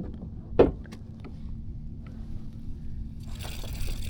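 A single thump about half a second in, with a few small clicks, over a low steady hum as gear is handled aboard a fishing kayak; near the end a steady hiss of water sets in.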